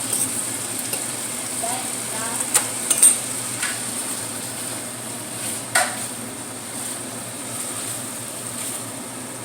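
Food sizzling in a frying pan while a utensil stirs it, with a few sharp clicks of the utensil against the pan, the loudest about three seconds in and another near six seconds.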